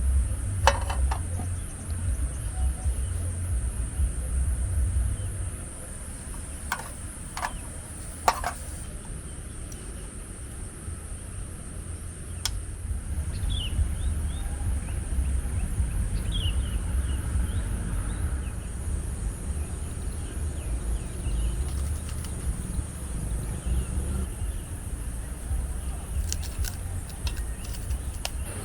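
Wind buffeting the microphone in an uneven low rumble, over a steady high-pitched drone of insects. A few sharp clicks and a couple of brief chirps come through now and then.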